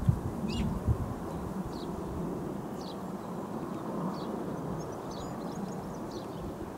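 Small birds chirping in short, scattered high calls over a steady low outdoor rumble, with a couple of soft low thumps in the first second.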